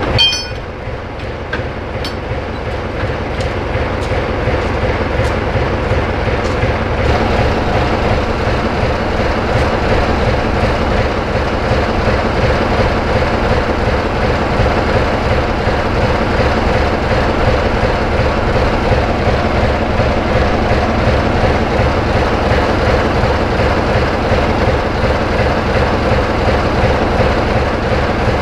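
Class 25 diesel locomotive's Sulzer six-cylinder engine running steadily with a deep rumble and a steady hum, growing louder over the first several seconds and then holding level. A brief high squeal sounds right at the start.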